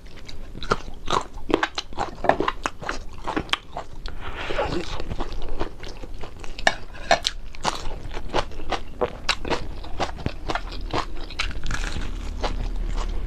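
Mouth close to the microphone chewing crispy fried fish: many sharp, irregular crunches in quick succession, with wet chewing between them.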